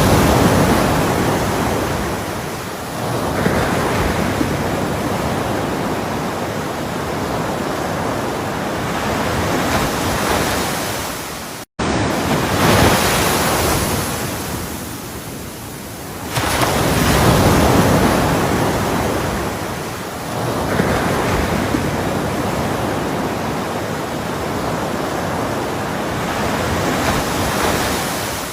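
Ocean waves breaking and washing in, the rush of surf swelling and fading every few seconds. The sound cuts out for an instant about twelve seconds in.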